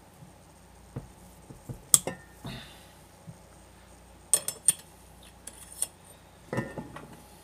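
Metal parts of an ATV axle assembly clinking and knocking as they are handled: a scatter of separate sharp clinks, with a short cluster of them in the middle and a longer clatter near the end.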